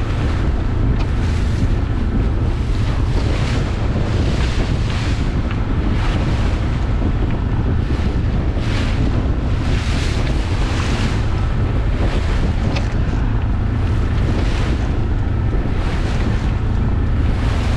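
Gusty wind buffeting the microphone with a steady low rumble, while choppy waves splash against a small sailboat's hull in repeated hissing surges every second or two.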